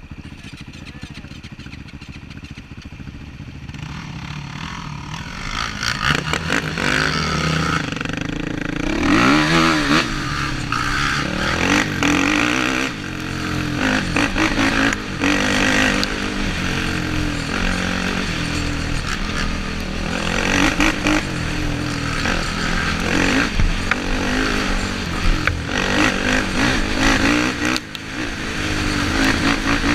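Sport ATV engine running at low revs, then revving up hard from about five seconds in and pulling through the gears with repeated rises and falls in pitch as the quad is ridden fast along a dirt trail.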